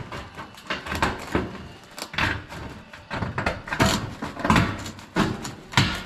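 Tin snips cutting sheet-metal roofing: an uneven series of short, sharp snips, a few each second.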